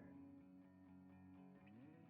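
Quiet background music, mostly a soft guitar holding sustained notes with a slow change of chord near the end.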